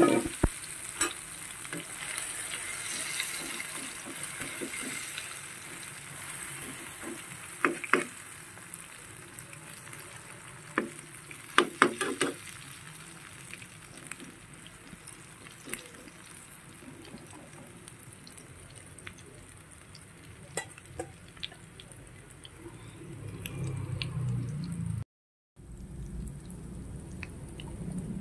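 Fish-roe omelette mixture sizzling in hot cooking oil in a nonstick frying pan. A spatula scrapes and taps against the pan now and then, most sharply about 8 and 12 seconds in.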